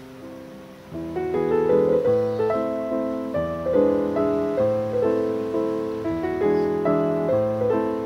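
Background piano music: a gentle run of notes, each fading after it is struck, growing fuller and louder about a second in.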